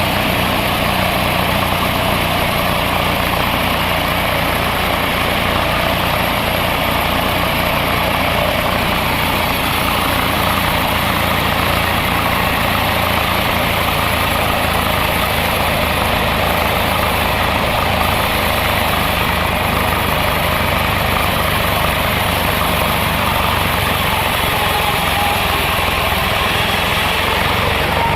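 Engine-driven saw running steadily as it cuts through an old teak log.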